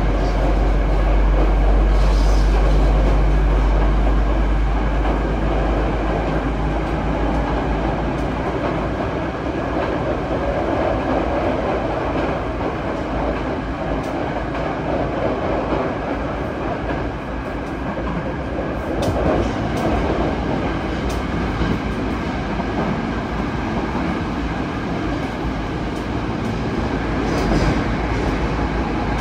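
Running noise inside a Yokohama Municipal Subway 3000S train (Mitsubishi IGBT-VVVF drive) at speed: a steady rumble of wheels on rails, with a few sharp clicks from the track in the second half.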